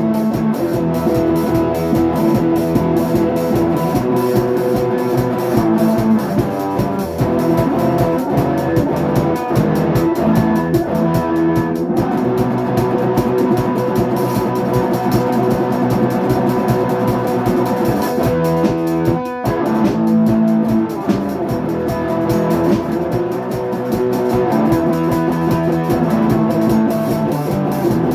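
Band playing rock: guitar over a steady drum-kit beat, with a brief drop-out a little past two-thirds of the way through.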